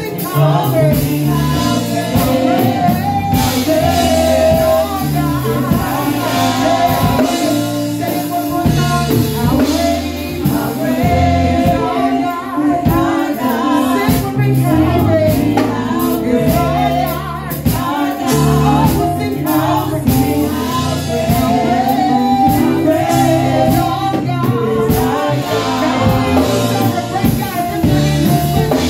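Live gospel song: a woman singing lead through a microphone, with a second female voice, over a drum kit and low sustained accompaniment.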